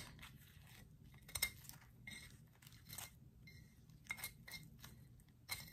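Scissors snipping through a thin paper napkin, trimming it along a shell's edge: a string of faint, short snips about one a second.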